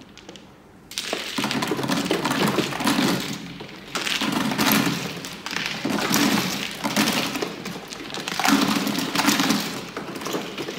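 Mahjong tiles clattering as they are swept together and pushed into the centre opening of an automatic mahjong table: a dense, continuous rattle of tiles knocking against each other, starting about a second in.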